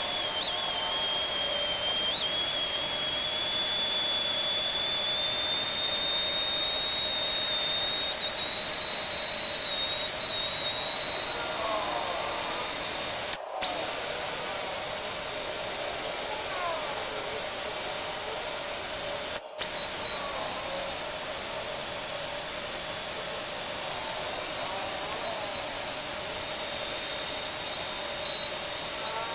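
An electric power tool runs continuously with a steady high-pitched whine. The whine drifts slightly up in pitch over the first several seconds and breaks off briefly twice.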